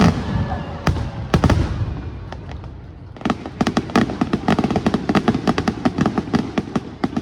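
Fireworks going off: several loud bangs in the first second and a half, then, from about three seconds in, a dense run of rapid crackling pops.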